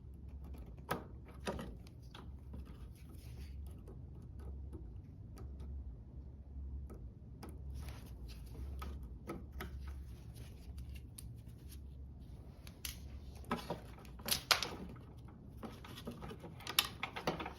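Scattered small metal clicks and taps as a retaining clip is worked off a lawnmower's rear axle with a clip tool. The clicks come in a quicker cluster near the end. A low steady hum runs underneath.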